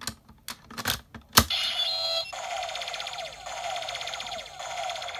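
DX Lost Driver toy belt: plastic clicks as the Skull Gaia Memory is pushed into its slot, the sharpest about a second and a half in. Then the belt's electronic sound effect plays through its small speaker as a looping standby tune of repeating falling tones.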